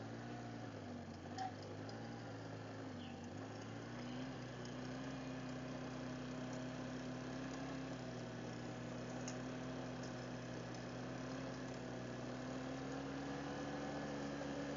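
Quad bike engine running at a steady cruise, heard faint and muffled through a helmet intercom camera's microphone. Its low hum wavers slightly in pitch in the first few seconds and rises a little near the end.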